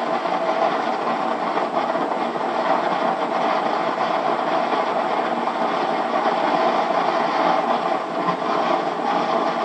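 Steady, even rushing of heavy rain and floodwater pouring down a hillside, heard through a camcorder tape's playback with no deep bass.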